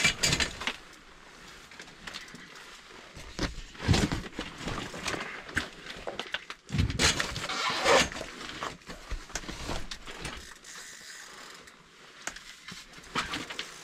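Intermittent rustling and knocking of people shifting about on the ice and handling fishing gear, loudest right at the start, about four seconds in, and around seven to eight seconds in.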